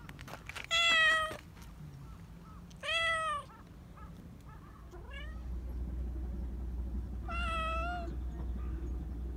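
Black Persian cat meowing three times, short high meows, each under a second long. From about halfway a steady low purring rumble sets in under the meows.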